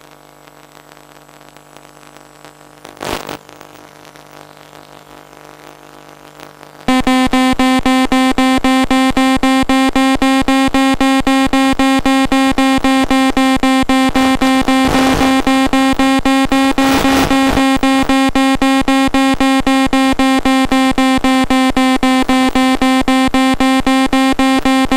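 Electronic telemetry tone from an FPV plane's on-screen-display system: a steady pitched beep pulsed rapidly, starting about seven seconds in. It is typical of an audio variometer signalling that the plane is climbing. Before it there is only a faint hum with one short louder sound.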